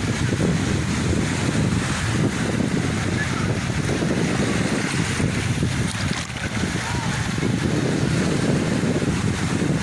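Sea waves washing steadily, with wind buffeting the microphone in a loud, low rumble.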